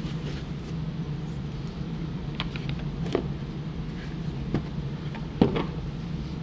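Hard plastic watch case being shut and handled: a few light plastic clicks and knocks, the loudest about five seconds in, over a steady low hum.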